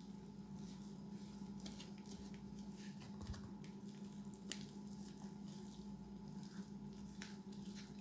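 Quiet food-preparation handling sounds: scattered soft clicks, taps and squishes over a steady low hum.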